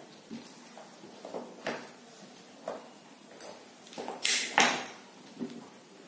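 Small white plastic plug connectors and wires of an e-bike controller's harness being handled and fitted together, with scattered light clicks and rustles. Two sharper clacks a little over four seconds in are the loudest.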